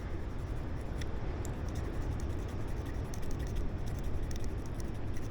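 Magnesium fire-starter block being scraped to shave magnesium onto tinder: many short, quick scraping strokes over a steady low rumble.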